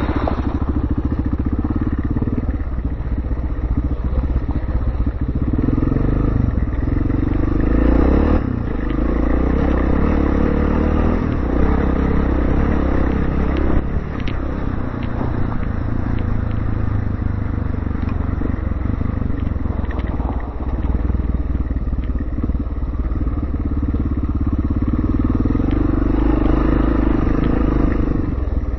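A Yamaha TT600R's single-cylinder four-stroke engine running steadily as the bike is ridden along a dirt track, its note shifting with the throttle.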